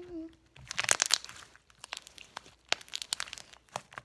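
Glossy slime with a little silly string mixed in, being stretched and squeezed in the hands, giving irregular crackling, squelching pops.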